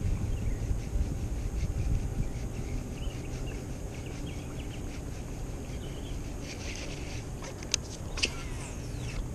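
Baitcasting reel being cranked, a fine ticking, with a low wind rumble on the microphone that fades after the first couple of seconds and faint high chirps throughout. Two sharp clicks come close together near the end.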